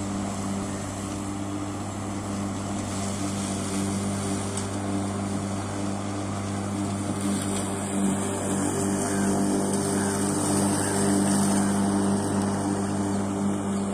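A KBM 3 HP three-phase electric lawn mower running steadily: the motor hums over the whir of the spinning blade.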